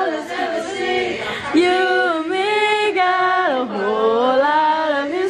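A woman singing, holding long notes that slide up and down in pitch.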